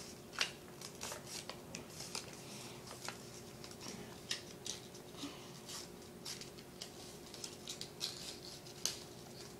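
Sheet of paper rustling and crinkling in the hands as it is folded and creased, in short, irregular crackles several times a second.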